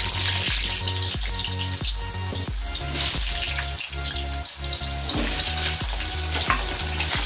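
Raw potato cubes sizzling as they fry in hot oil in a kadai, a dense steady hiss that freshens as more pieces go in.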